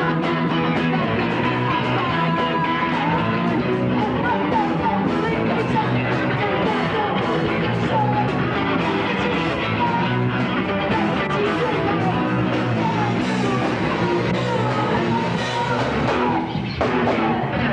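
Rock music in a punk style with singing, playing steadily and loud.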